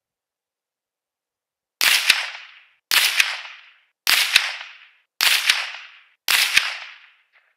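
Guncraft Gen 2 AR-15-style semi-automatic rifle in .22 WMR (22 Magnum) firing five shots about a second apart, each shot followed a moment later by a second sharp crack. This is a five-shot group at 50 yards with Federal 50 grain jacketed hollow points.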